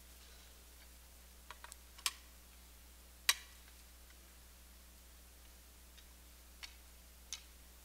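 Scattered light clicks and clinks, a few close together about a second and a half in and the loudest just after three seconds, from metal offering plates being handled and set down at the altar.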